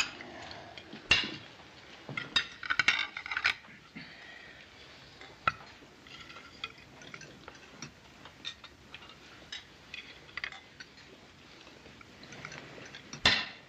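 Tableware clinking during a meal: cutlery against plates and mugs, in scattered sharp clinks with a small cluster a couple of seconds in and a louder clink near the end.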